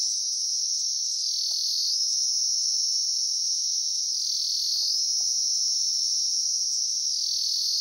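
A cicada (kirkire) calling from a tree trunk: a loud, continuous high-pitched buzz that dips briefly in pitch three times.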